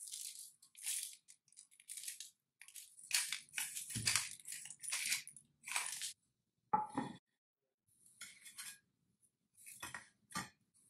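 Pepper mill grinding in a run of short crunchy bursts, about ten in six seconds. Near the end come two sharp knocks as toast slices are set on a plate.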